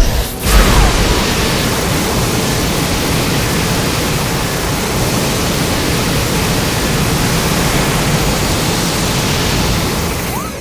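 Custom Godzilla atomic-breath sound effect: a sudden loud blast about half a second in, then a steady, dense rushing noise held for about nine seconds before it fades out at the end.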